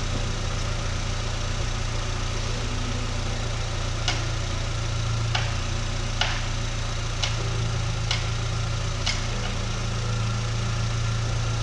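R50 Mini Cooper's engine idling steadily under test, with six sharp clicks about a second apart through the middle.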